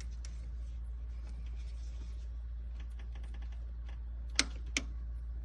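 Light clicks of hand tools working metal on an engine's valvetrain, with a quick run of small ticks about three seconds in and two sharp clicks near the end, over a steady low hum.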